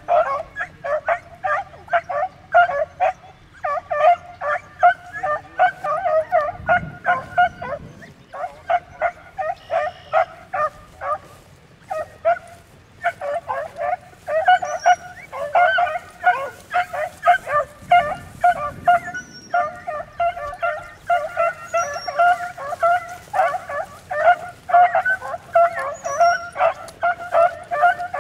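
Beagles baying in a fast, steady run of repeated cries, with a few brief pauses: hounds giving tongue as they work a rabbit's scent through cover.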